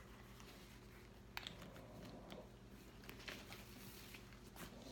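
Faint handling of a leather crossbody bag as a phone is slipped into the pocket under its flap: soft rustles and a few light clicks and taps, over a low steady hum.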